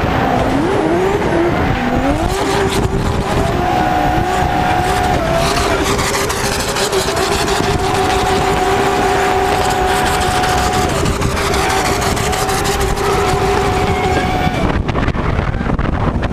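BMW M3 E92 drift car's engine, heard from on board, revving up and down and then held at steady high revs through a long drift, falling off near the end as the throttle is lifted, with tyre noise under it.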